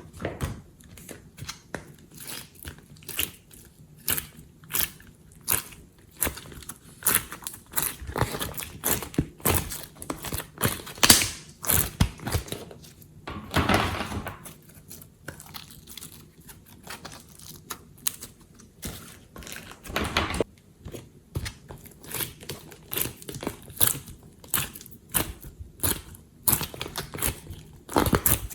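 Glossy slime being kneaded and pressed by hand, giving irregular sticky pops and clicks several times a second, with a longer squelch about halfway through.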